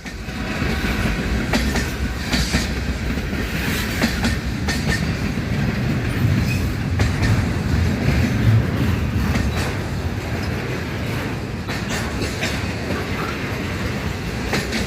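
Pair of diesel freight locomotives accelerating under power, engines and turbochargers running hard with a steady low rumble, and wheels clacking over rail joints now and then.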